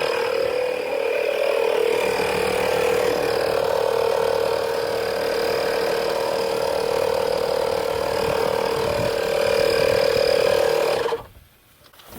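Small 12-volt tyre-inflation compressor running steadily with a strong hum, pumping air into the car's intake for a vacuum-leak pressure test. It shuts off abruptly about eleven seconds in.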